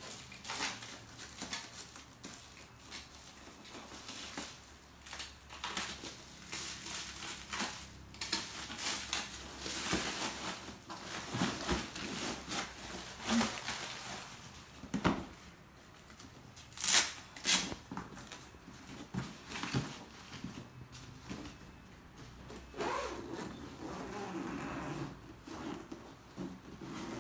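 Packaging of an air rifle being opened by hand: irregular rustling, scraping and clicks, with two sharp loud snaps about 17 seconds in.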